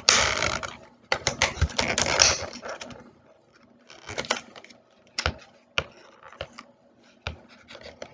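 Stiff clear plastic clamshell packaging handled and pried open by hand: dense crinkling and crackling for the first few seconds, then scattered sharp clicks and snaps of the plastic.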